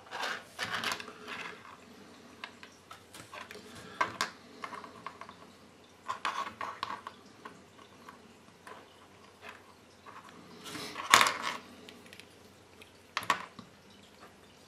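Small plastic toy figurines being handled and set down on a wooden table: scattered light clicks and taps, loudest about eleven seconds in.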